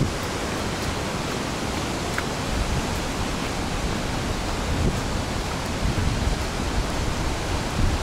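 Steady rushing hiss, with low wind buffeting on the microphone a few times, the strongest near the end.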